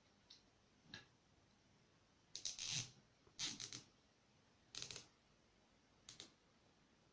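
Nylon cable ties being pulled tight through their ratchet heads: four short zipping bursts, the first two the loudest, after a couple of faint clicks.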